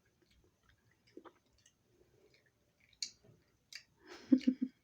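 A person chewing a piece of candy, with small wet mouth clicks and smacks, then near the end a short burst of voice in three quick pulses.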